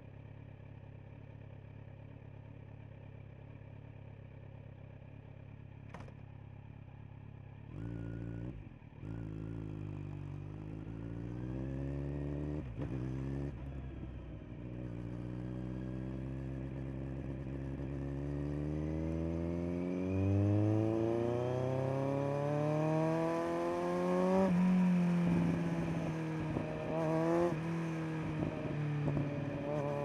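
Kawasaki Z900's inline-four engine through a LeoVince LV10 Carbon slip-on exhaust, idling steadily with a single click about six seconds in. About a quarter of the way in it pulls away and climbs steadily in pitch and loudness, and near the end the pitch drops briefly a few times and rises again as it changes up through the gears.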